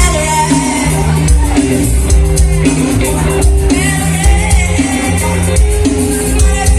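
Live band playing a song with a moving bass line and a steady beat, loud throughout.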